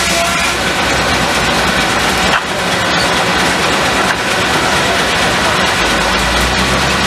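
Steam-powered sawmill machinery running with a steady, loud noise, briefly dipping about two and a half seconds in.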